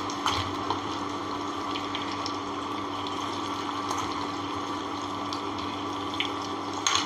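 Battered cauliflower pieces sizzling steadily as they deep-fry in hot oil, with a few light clicks.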